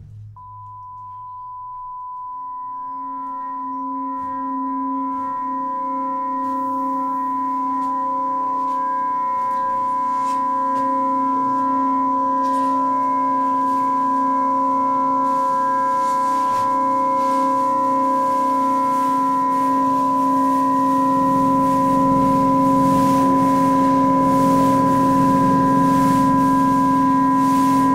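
Sustained drone of several steady pure tones: a high tone comes in abruptly just after the start, lower tones fade in beneath it, and the whole slowly swells louder.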